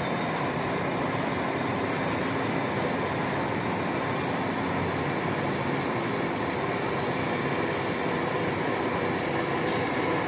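Steady, unbroken heavy-machinery noise from a P&H electric rope shovel digging into the bank, hoisting its loaded dipper and swinging it over a haul truck.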